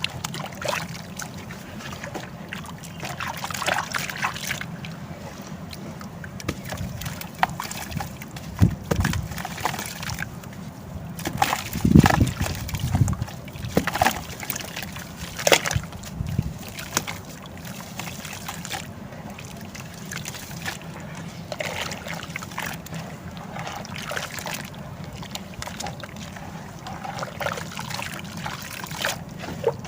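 Hardened sand-and-cement chunks crumbling and being dipped in water: irregular crackling and small splashes and sloshing throughout, with louder crunches about nine and twelve seconds in.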